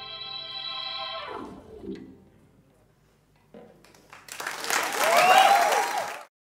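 A band's final held organ chord dies away into a short hush. About four seconds in, the audience breaks into applause and cheering whoops, which grow loud and are cut off abruptly just before the end.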